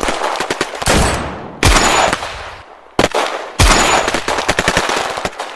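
Machine-gun fire sound effects: rapid runs of shots, broken by three heavier blasts, about one and a half, three and three and a half seconds in, that each die away slowly.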